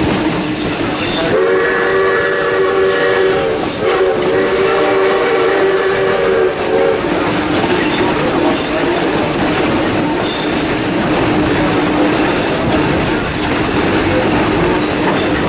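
Steam locomotive 621 sounding its whistle twice, a blast of about two seconds followed at once by a longer one of about three seconds, over the steady rumble and clatter of the train pulling out with its wooden carriages.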